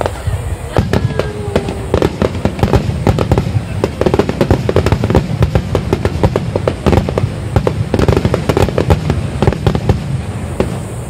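Fireworks display: aerial shells bursting in quick, dense succession with continual crackling, heaviest in the middle and toward the end.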